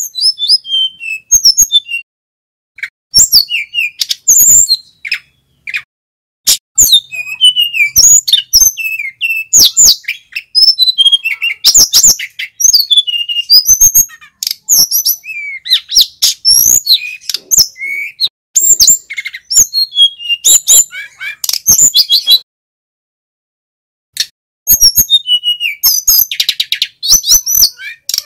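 A male sikatan gunung (a flycatcher) singing a long, loud song of fast, high-pitched chirps and whistled phrases, run together in dense bursts. There is a pause of about two seconds toward the end.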